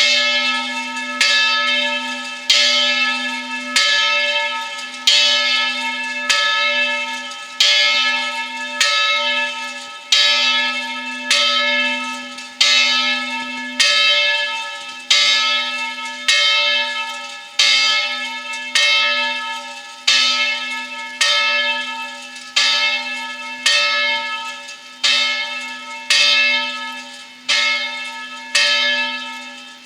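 Church bell ringing at a steady swing, one stroke about every second and a quarter, each stroke ringing on and fading before the next.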